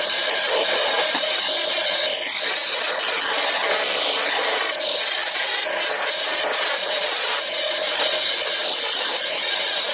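STD-120 wood lathe running while a hand-held turning chisel cuts the spinning wooden workpiece: a continuous scraping cut with a steady hum from the machine beneath.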